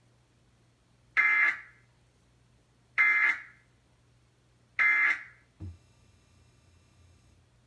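Three short bursts of Emergency Alert System data tones, the screechy end-of-message code that closes a weekly EAS test, evenly spaced a little under two seconds apart. A soft click follows after the third burst.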